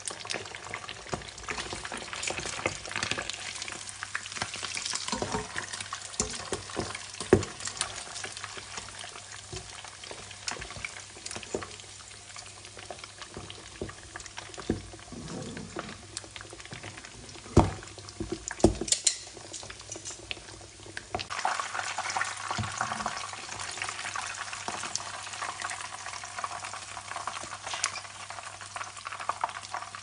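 Fish deep-frying in hot oil in a wok: a steady crackling sizzle, with a few sharp clicks of a metal slotted skimmer against the pan as the fish is turned and lifted out.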